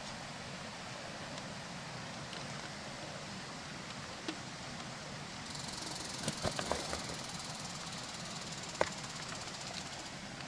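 A few light clicks and taps from hands connecting wires and clips on an electric fence charger, over a steady outdoor hiss that grows brighter about halfway through.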